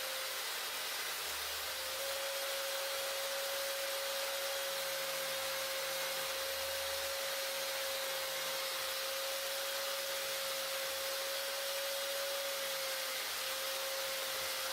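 A small electric power tool running steadily: a constant whine over a high hiss, cutting out briefly near the start and dipping once near the end.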